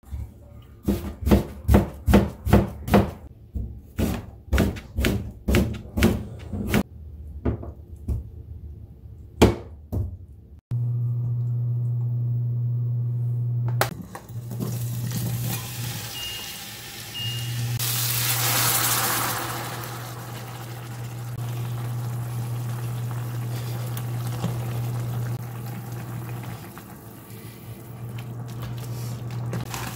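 Kitchen knife slicing onions on a plastic cutting board, about three quick chops a second, slowing near the end. After about eleven seconds the sound switches to a steady low hum from an induction cooktop, with oil and onions sizzling in a stainless steel pot; the hiss swells for a couple of seconds midway.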